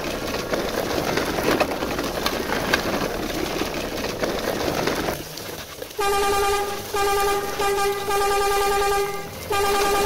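Plastic toy-truck wheels rolling over dry leaves and twigs, rustling and crackling. About six seconds in, a horn starts honking in a string of five steady blasts.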